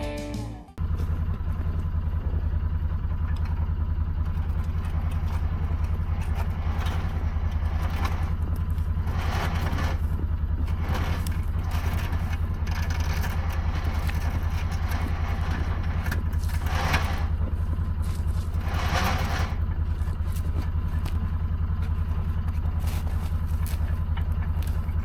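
An engine running steadily with an even low drone, with a few short rushes of noise over it.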